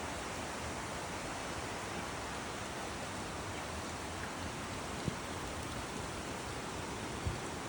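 Steady sound of a creek flowing, with two brief low thumps about five and seven seconds in.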